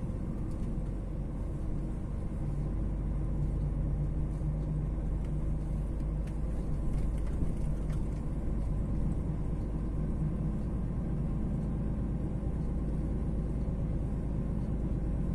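DAF XF 480 truck heard from inside the cab while driving: a steady drone from its PACCAR MX-13 inline-six diesel under load, over low road and tyre rumble.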